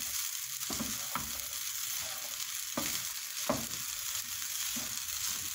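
Fried rice sizzling in a hot pan as it is stirred with a wooden spatula, the spatula scraping and knocking against the granite-coated pan every second or so over a steady sizzle.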